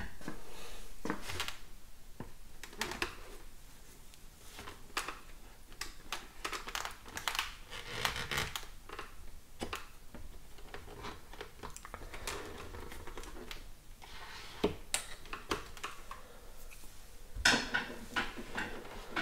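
Irregular small clicks, taps and scrapes of a screwdriver and fingers working at the rim of a motorcycle helmet, prying out a small microphone and its wire.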